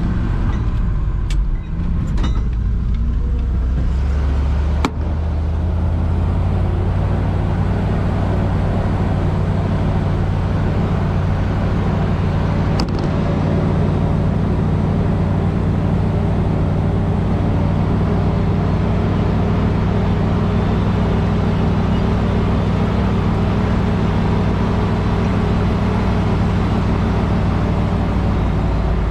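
A vehicle engine running steadily at constant speed, with a few sharp clicks in the first five seconds.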